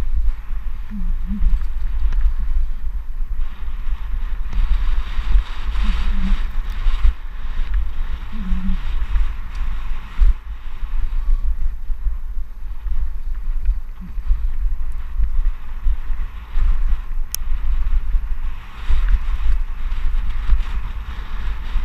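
Wind buffeting the microphone of a helmet-mounted camera on a fast mountain-bike descent. Under it is the rush of knobby tyres over loose, dry dirt, rising and falling with the trail.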